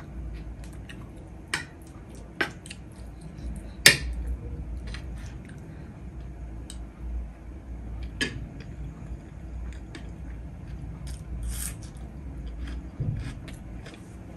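Close-up eating sounds: chewing a mouthful of biryani, with scattered sharp clicks of metal cutlery against a plate and a plastic curry container. The loudest click comes about four seconds in.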